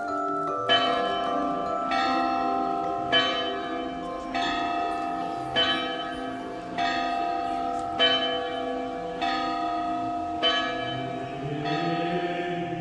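Bells struck at a slow, even pace, about one stroke every second and a quarter, each left ringing so that the tones overlap into a sustained chord.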